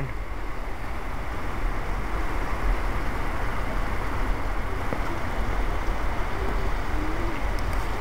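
Steady rushing noise of spring water running near the old mill, with a low wind rumble on the microphone.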